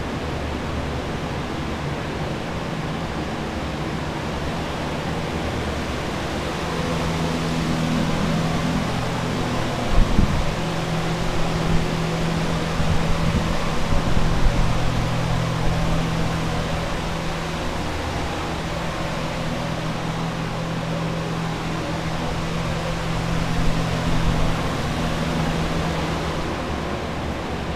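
Steady whooshing of water-damage drying equipment, air movers and dehumidifiers, running to dry out a flooded building. A low steady hum comes in about seven seconds in and fades near the end, with a few knocks in the middle.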